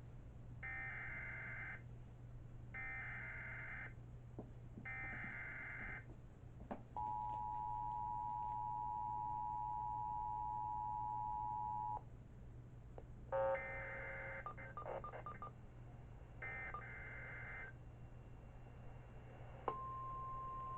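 Emergency Alert System (SAME) alert: three short bursts of warbling header data, then the two-tone attention signal held for about five seconds, followed by a longer choppy data burst and a short one. Near the end a single steady weather-radio alert tone starts and holds. A steady low hum lies under it all.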